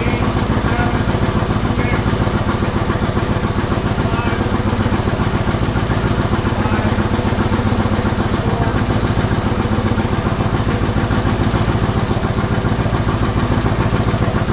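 Twin-turbo 408 LS V8 idling steadily, with a fast, even pulse.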